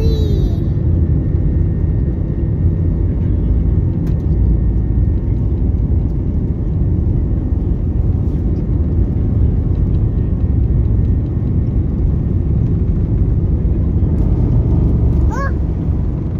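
Cabin noise of a JetSMART Airbus A320-family airliner on its takeoff run and lift-off: the jet engines at takeoff thrust make a loud, steady low rumble. A brief rising sound cuts through about fifteen seconds in.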